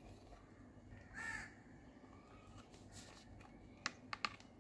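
A crow caws once, about a second in. Near the end come three or four sharp clicks as the white plastic base of an outdoor wall light is pressed and fitted against the wall.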